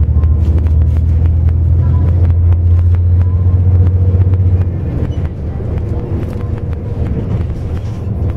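Intercity bus engine heard from inside the cabin: a steady low drone that eases off about five seconds in, with light rattling throughout.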